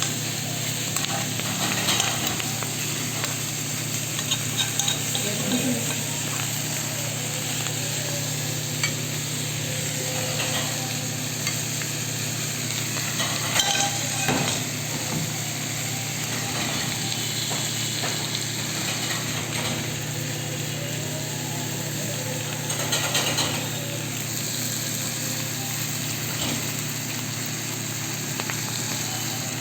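Chicken frying in a pan, sizzling steadily in hot oil, with a few brief clatters of stirring and a steady low hum underneath.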